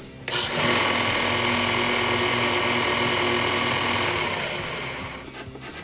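Bauer 4 in. × 36 in. belt and 6 in. disc bench sander switched on with no workpiece, its motor and belt running with a steady whine. Near the end it is switched off and winds down, the pitch falling as it slows.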